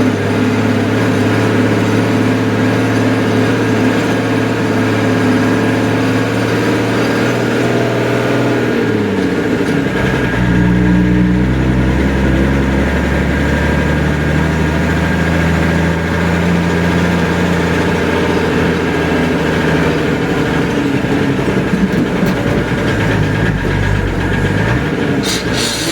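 An engine running steadily; about nine seconds in its pitch glides down and it settles at a lower, steady speed.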